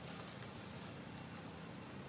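Faint, steady outdoor background noise: an even hiss with a low hum underneath.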